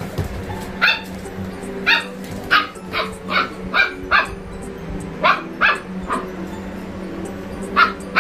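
A dog barking repeatedly, about a dozen short, sharp barks at uneven intervals, over background music.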